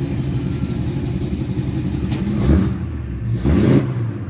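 Square-body Chevy step-side pickup's engine running, with two short revs, about two and a half and three and a half seconds in.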